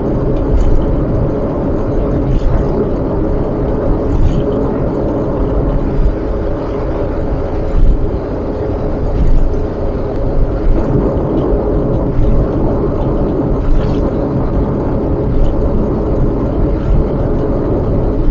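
A car on the move: steady low rumble of road and engine noise.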